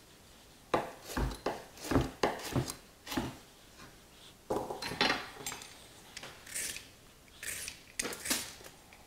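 A chef's knife chopping root vegetables on a wooden cutting board: sharp chops about half a second apart for the first few seconds. Softer scraping strokes follow in the second half.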